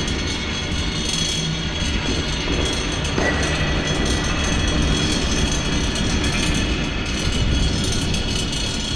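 Dense, steady rumbling noise with a few faint held tones, the texture of an experimental electroacoustic or field-recording piece. A faint high tone comes in with a click about three seconds in.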